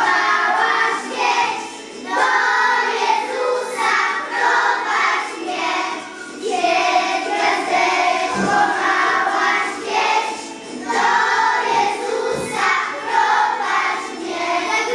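A group of young children singing together in Polish, a Christmas carol, in phrases of about four seconds with short breaks for breath between them.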